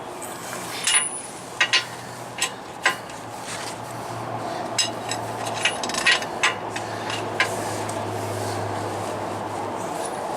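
Irregular metal clinks and knocks of a socket and long breaker bar on the U-bolt nuts of a truck's front axle as the loose U-bolts are re-torqued, about ten sharp strikes over a steady low hum.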